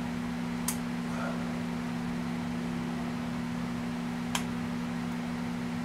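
Two short sharp metallic clicks, about three and a half seconds apart, as a piston-pin retaining clip is worked into its groove with a pick, over a steady low hum.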